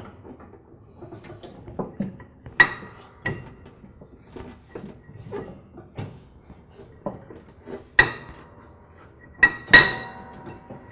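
Light metallic clinks and knocks as a drive belt is worked off a Troy-Bilt Pony lawn tractor's variable speed pulley, whose metal sheaves and movable center section clink as they are shifted by hand. The sharpest ringing strikes come about two and a half seconds in, at about eight seconds, and twice near the end.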